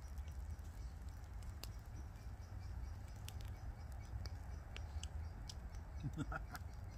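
Sparse, irregular light ticks and crackles over a low, steady rumble.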